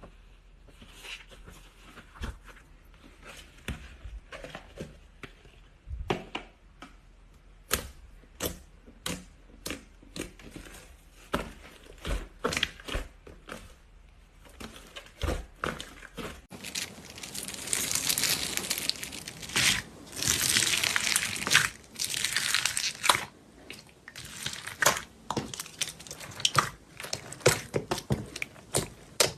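Slime being squeezed and stretched by hand: a string of sharp irregular clicks and pops, with a louder stretch of dense crackling from about 17 to 23 seconds in.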